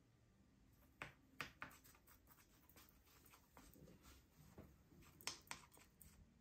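Faint, scattered light clicks and scrapes of a small grease brush working inside the new bushings of an automatic gearbox oil pump, with near silence between them.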